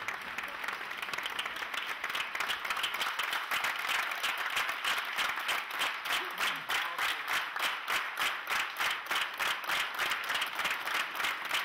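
A large theatre audience applauding, the clapping falling into unison about three seconds in as a steady rhythmic beat of about three claps a second.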